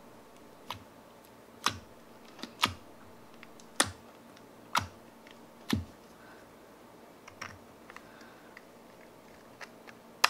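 Fingers poking clear jelly slime in a small plastic tub, making sharp clicky pops about once a second. After about six seconds the clicks turn fainter and sparser while the clear plastic lid is handled over the tub.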